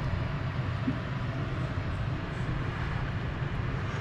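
Steady low rumbling background noise, even in level throughout, like a running fan or ventilation.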